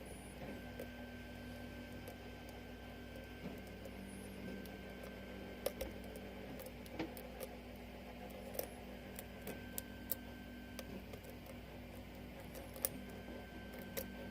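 Faint, scattered light clicks of a lock pick and tension wrench working the pin stack of a 6-pin Falcon lock during single-pin picking, over a steady low hum.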